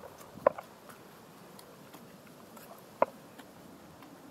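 Sharp knocks from a hiker moving over a rocky mountain trail: two close together at the start and a third about three seconds in, each with a brief ring.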